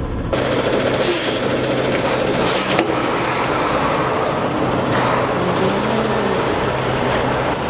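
Diesel semi-truck engine idling, heard from outside the cab, with two short hisses of air about one second and two and a half seconds in.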